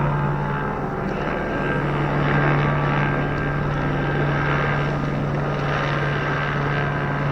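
Helicopter circling overhead, its engine and rotor making a steady drone.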